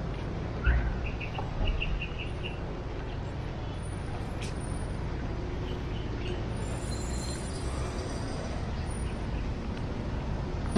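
Steady street traffic noise of passing vehicles, with a short run of brief high chirps in the first couple of seconds.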